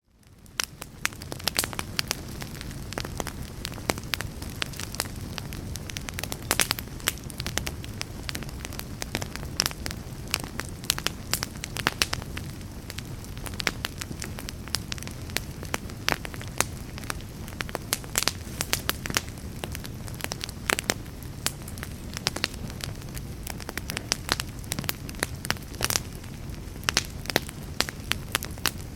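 Fireplace fire burning: a steady low rumble of flames with frequent sharp crackles and pops. It fades in from near silence at the start.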